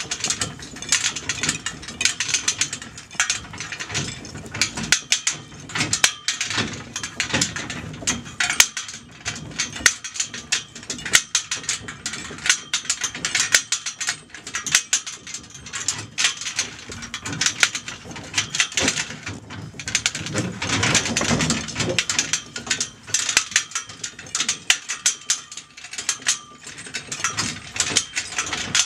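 Chain harness traces rattling and clinking against the cart's shafts as a Clydesdale draught horse pulls a small wheeled lorry at a walk: a continuous, irregular metallic rattle.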